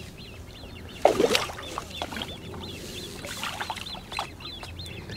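A small bird chirping in a quick, steady series, about four or five high chirps a second. A short, loud noise cuts across it about a second in, with fainter knocks a couple of seconds later.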